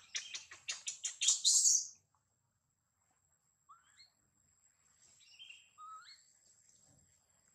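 Baby macaque squealing: a rapid string of about seven high-pitched cries over the first two seconds, the last ones loudest. A few faint rising chirps follow a couple of seconds later.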